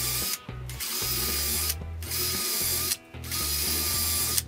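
Cordless drill with a thin twist bit drilling pilot holes into wood through a door hinge's screw holes, running in four bursts of about a second each with short pauses between.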